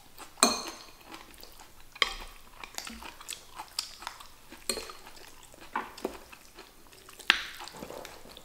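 Chopsticks clicking and scraping against a large ceramic plate as noodles are picked up, in sharp, irregular knocks every second or so; the loudest come about half a second in and near the end.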